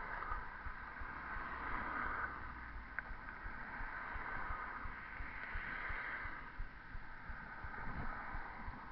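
Muffled outdoor noise on an action camera's microphone, with irregular low rumbles of wind buffeting the mic and a faint click about three seconds in.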